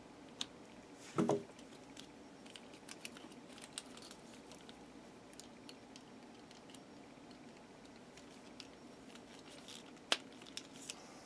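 Small RC buggy parts and tools being handled: scattered light clicks and taps, a short louder knock about a second in and a sharp click near the end.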